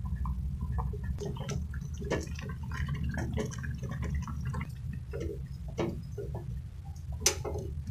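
Rice boiling hard in a metal pot over a gas burner: a steady low rumble with many small bubbling pops on top. Near the end comes one sharp knock.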